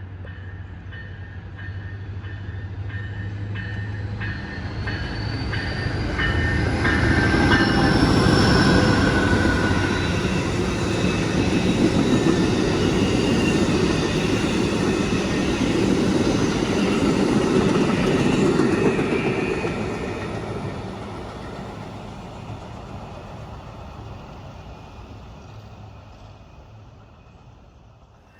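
Siemens ALC-42 Charger locomotive's Cummins QSK95 diesel working hard under acceleration. Its turbocharger whistle rises in pitch over several seconds and then holds high over the engine's low drone and the rumble of the passing train. The sound swells as the locomotive goes by and fades away near the end.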